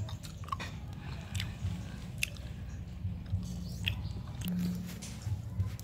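A person chewing a mouthful of rice and small dried fish close to the microphone, with many short wet mouth clicks and smacks. A low steady hum runs underneath.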